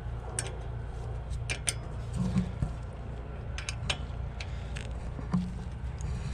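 Scattered sharp metallic clicks and clinks of hand tools working the 10 mm caliper bolts on a truck's rear brake, over a steady low hum.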